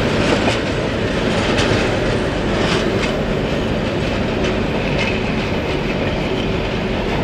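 Freight train of tank wagons rolling past at speed, wheels clattering over rail joints in an irregular clickety-clack over a steady rumble.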